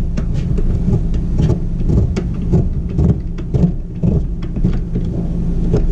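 RV roof vent being cranked open by hand, its crank mechanism clicking irregularly as the lid lifts, over a steady low mechanical hum.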